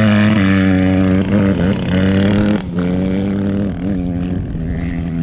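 Dirt bike engine running hard at high revs, its pitch dipping briefly and recovering several times.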